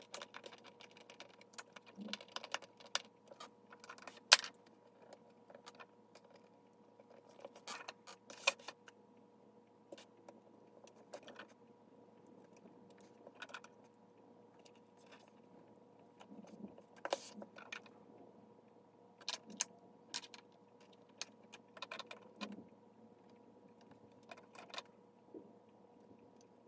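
Scattered light clicks and taps from a ThinkPad T41's plastic case parts being handled and fitted back together, a few seconds apart, the sharpest about four seconds in. A faint steady hum runs underneath.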